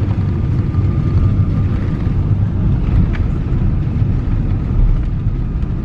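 Jet airliner cabin noise during the landing approach: a steady low rumble of engines and airflow, with a faint constant tone above it and a single click about three seconds in.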